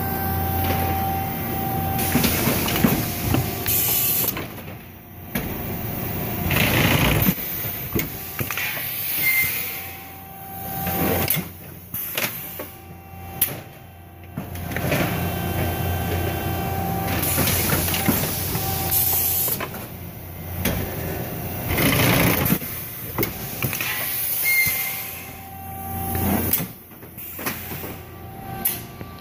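Industrial machinery running with a steady hum, broken every few seconds by bursts of hissing air, like pneumatic valves venting.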